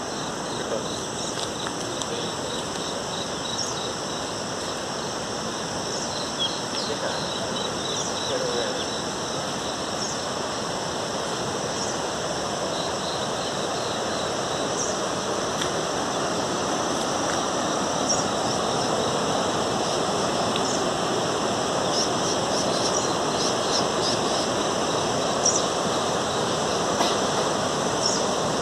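Rushing water: a steady noise that slowly grows louder, with scattered short high chirps over it.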